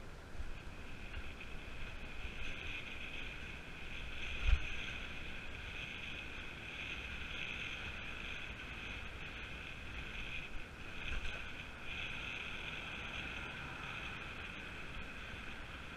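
Wind and road noise picked up by a camera riding on a moving road bike: a steady rushing hiss with low buffeting, and one thump about four and a half seconds in.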